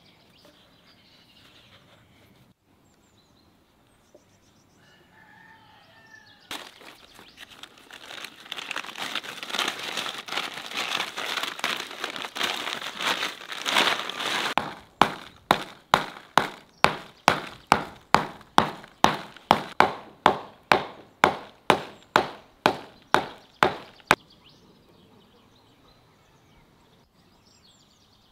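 A woven plastic sack rustling and crackling as it is handled, followed by about twenty heavy strikes, a little over two a second, that stop suddenly.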